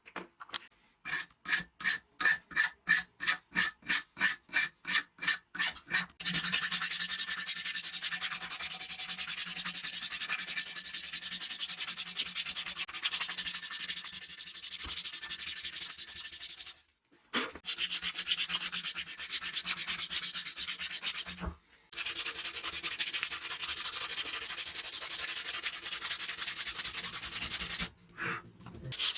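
Sanding: about six seconds of rhythmic back-and-forth strokes, roughly three a second, then steady continuous sanding that stops briefly twice.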